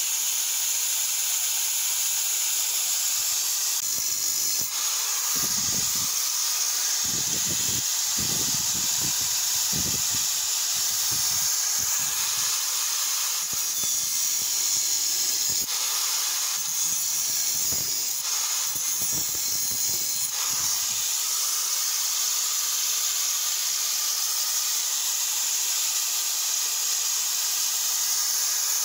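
Electric angle grinder with a cut-off wheel, running steadily with a high hiss-like whine. Its wheel bites into the steel of an axe head off and on through the middle stretch, cutting notches into the edge.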